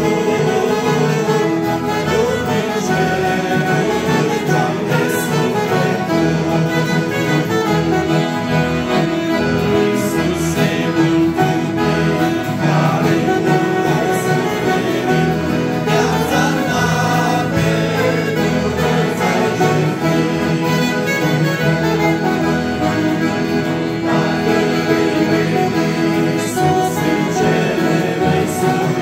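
A live Romanian Christian song: a group of men singing together, accompanied by two accordions, an acoustic guitar and an alto saxophone, playing steadily without a break.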